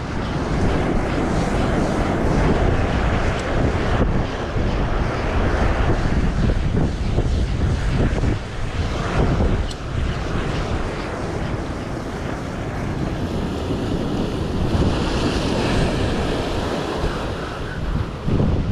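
Strong wind buffeting the microphone over surf breaking and churning against the rocks, rising and falling in gusts and swells.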